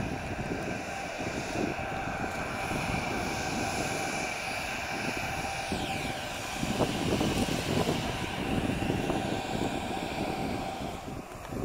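Embraer Legacy 650 business jet taxiing past, its two Rolls-Royce AE 3007 turbofans running with a steady whine. About halfway through, a high whine falls sharply in pitch as the jet goes by, followed by a louder low rumble.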